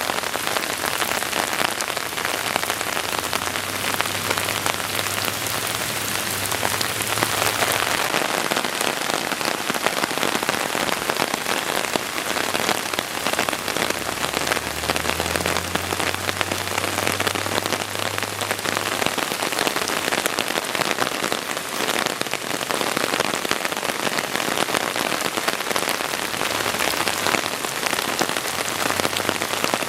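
Steady heavy rain falling and pattering on surfaces, with a faint low hum coming and going twice.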